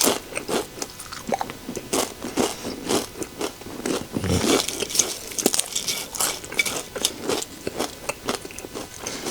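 Close-up crunching and chewing of microwave nachos: crisp tortilla chips bitten and chewed in many irregular crunches.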